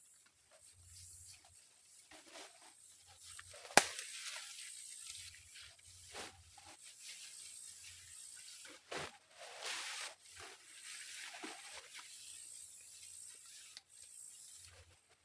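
Irregular rustling and swishing handling noises, with one sharp click or snap about four seconds in.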